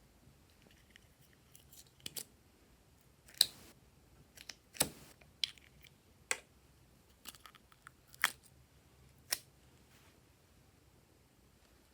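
Glossy slime being worked by hand, giving about a dozen sharp, irregular clicks and pops as trapped air bursts.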